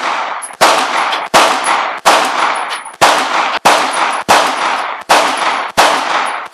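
Semi-automatic pistol fired in a steady string, about eight shots at roughly one every three-quarters of a second, each shot ringing out in a long echo before the next.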